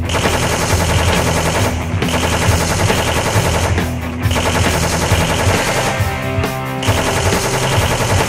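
Rapid machine-gun fire sound effect in bursts of about two seconds with short breaks between them, over background music.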